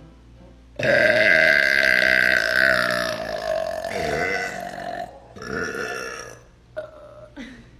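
A person's long, loud burp lasting about four seconds, its pitch dipping near the end, followed by a second, shorter burp.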